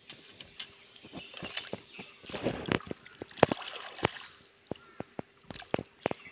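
Hands splashing and sloshing in shallow pond water while washing a bundle of rods: irregular small splashes and drips, busiest near the middle.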